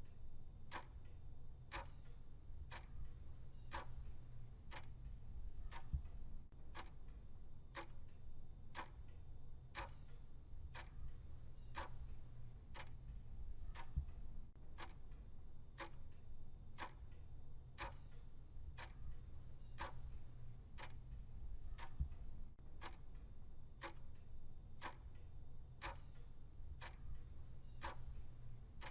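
Clock ticking steadily at about one tick a second over a low hum, with a soft low knock about every eight seconds.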